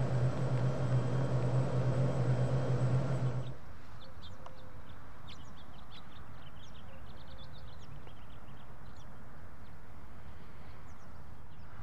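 A loud steady rumble with a low hum cuts off abruptly about three and a half seconds in, giving way to quiet outdoor ambience with birds chirping in many short, high calls.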